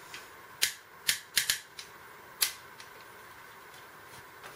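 Sharp clicks and knocks of plastic paintball magazines being handled and set down, about five of them in the first couple of seconds, two in quick succession about a second and a half in.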